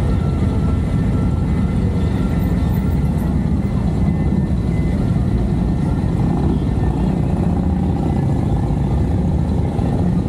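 Steady low rumble of wind buffeting the camera microphone.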